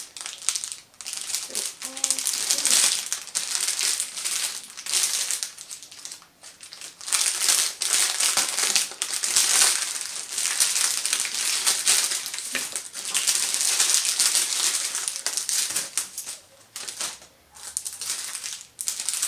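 Clear plastic packaging crinkling and rustling as it is handled and pulled open, in long stretches with a few short pauses.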